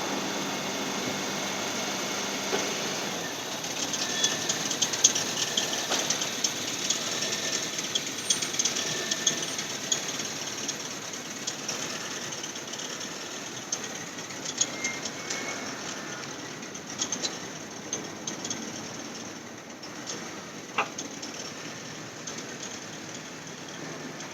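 2008 Honda Fit engine idling just after a cold start, with a rapid, irregular squeaking and ticking that comes on every cold start and gradually dies away, leaving a steadier idle.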